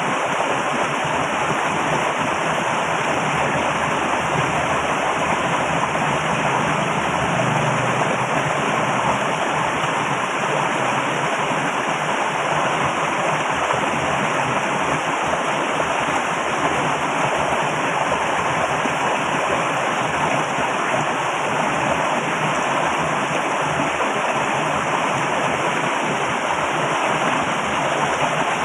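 Flowing water rushing, loud and steady, with no change throughout.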